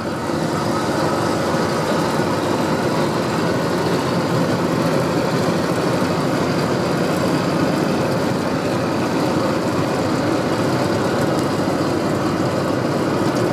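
Mercedes-Benz 1620 truck's six-cylinder turbo diesel engine running steadily with a rumbling exhaust note that holds an even pitch and level.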